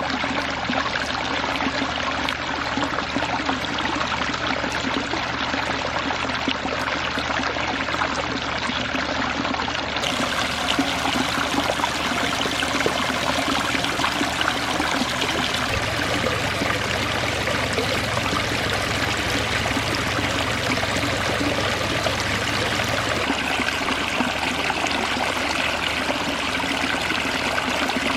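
Water running steadily over a small pondless waterfall: a continuous splashing and trickling.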